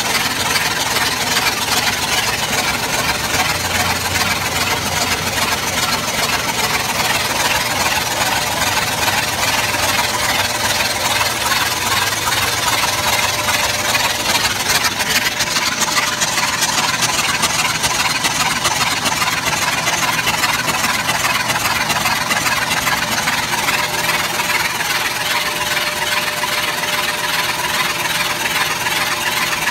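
Rebuilt 1966 Corvette 427 big-block V8 engine running steadily on a test run, a loud, even, busy sound that does not rise or fall.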